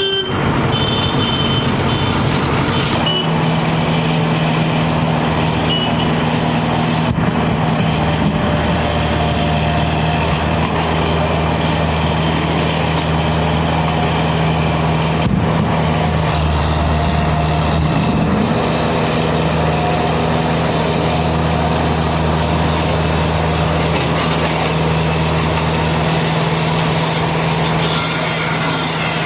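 Heavy diesel engine of a Case road roller running steadily under load while it is driven up onto a lorry, with a few short high beeps in the first few seconds.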